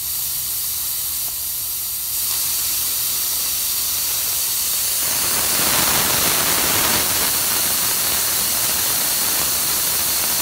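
Vent screw on a 40 lb propane cylinder's valve, opened with a screwdriver, hissing steadily as trapped air and vapour bleed out while the cylinder fills with liquid propane. The hiss grows louder about two seconds in and again around five seconds in.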